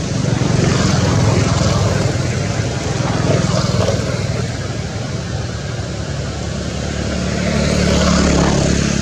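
Low engine rumble of passing motor traffic, swelling louder about a second in and again near the end.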